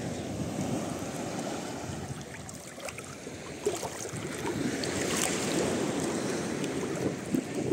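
Small waves washing and lapping in shallow, calm sea water, growing a little louder about halfway through.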